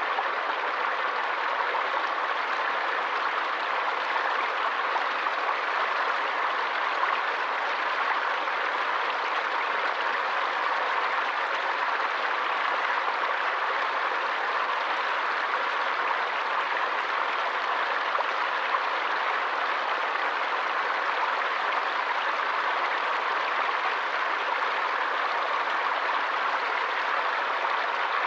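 Running water of a forest stream: a steady, even rush with no breaks.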